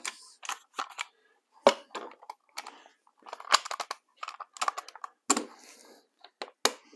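A bar clamp being fitted across a cabinet carcass and tightened, making a series of sharp clicks and knocks that come in quick runs about three and a half seconds in and again around five seconds in.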